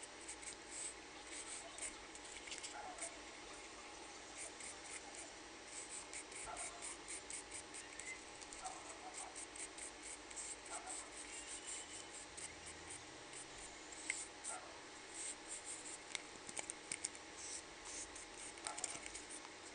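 Faint, quick, scratchy strokes of a paintbrush putting paint on a plastic cup, with a few sharper clicks in the second half as the cup is handled.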